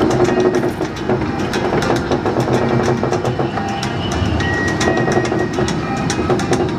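Miniature train running, heard from aboard its open passenger cars: a steady rumble and rattle with irregular clicking of the wheels and cars. A faint high squeal sounds briefly about two-thirds of the way in.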